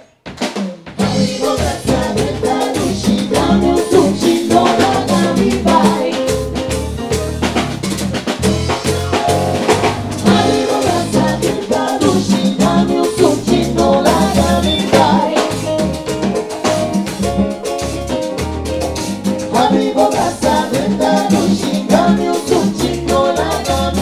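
Live band playing, with drum kit, bass and keyboards and a woman singing over them. The music starts abruptly about half a second in.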